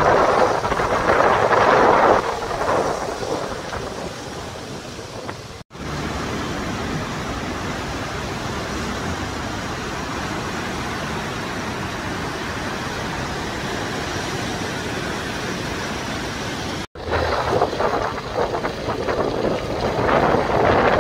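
Steady rushing of a swollen, muddy river in flood, from about six seconds in until about seventeen. Before and after it, gusty wind buffeting the microphone, loudest at the start and near the end.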